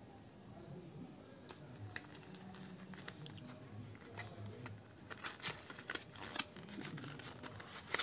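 A thin card sleeve holding a SIM ejector pin and a paper guide being handled and opened in the hands, making faint rustling and crinkling. Scattered crackles start a little way in and come thickest past the middle.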